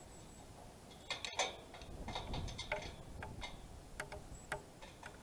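Irregular small clicks and taps from hand work at a winch and its cable on a steel lattice tower leg. The sharpest click comes about a second in.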